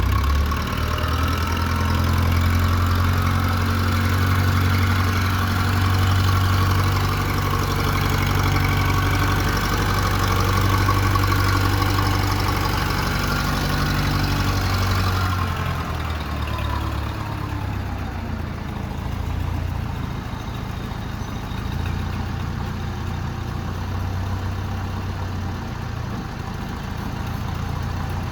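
1969 backhoe-loader's engine running at raised speed, then about halfway through throttled back, its pitch falling as it settles to a steady idle.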